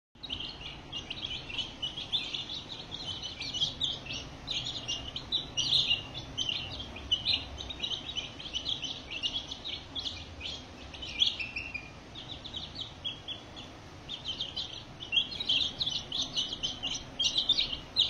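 A brood of young Aseel chicks cheeping, many short, high peeps overlapping almost without pause, thinning out for a couple of seconds past the middle.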